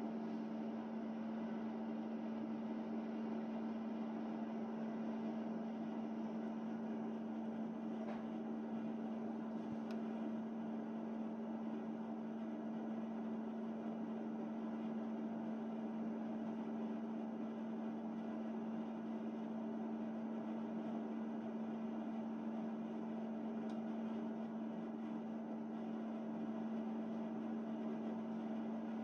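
Steady electrical hum of a stopped electric train's onboard equipment, heard inside the carriage: one strong low tone over a faint hiss, with a few faint ticks.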